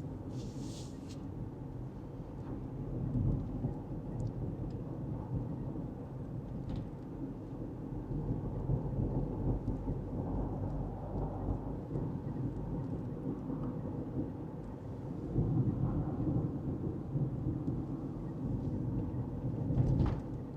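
Road noise inside a moving car's cabin: a steady low rumble of tyres and engine, swelling and easing slightly with the road.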